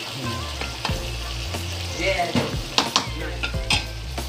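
Shrimp, squid and squid balls frying and sizzling in a pan while a utensil stirs them, knocking against the pan several times.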